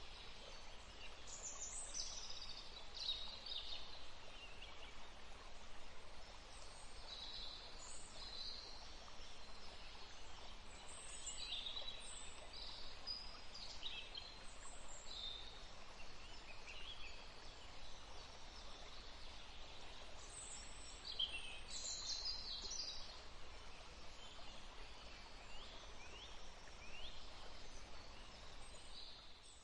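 Forest songbirds chirping and trilling in short high bursts, bunched at intervals, over a steady faint hiss of forest ambience.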